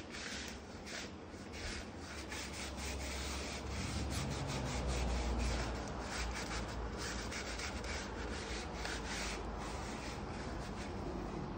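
Repeated rubbing and scraping strokes, with a low rumble swelling about four to six seconds in.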